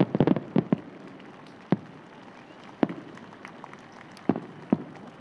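Bangs from the burst of a shōsanjakudama, a giant three-shaku firework shell: a quick cluster of sharp bangs in the first second, then single bangs spaced a second or more apart, over a fading rumble.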